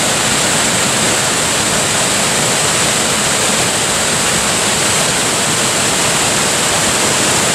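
Tsuzumi-ga-taki waterfall: water falling in a loud, steady, even rush.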